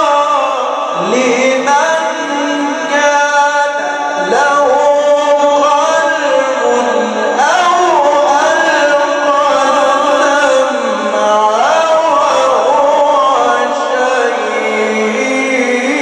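A solo male reciter chanting the Quran in the slow, melodic mujawwad style, drawing out long melismatic notes that glide up and down and hold.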